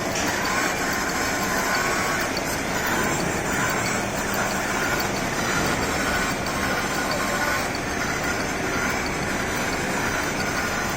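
Portable shaft-turning lathe running steadily on a shaft, a continuous mechanical drone with faint wavering whine tones.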